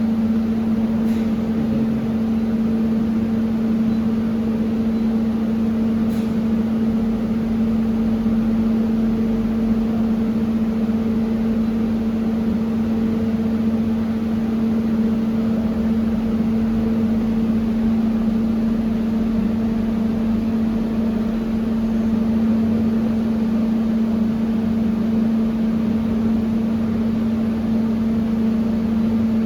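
Steady machine hum from laser welding equipment: one low tone with a weaker overtone over a noise bed, with two faint clicks about one and six seconds in.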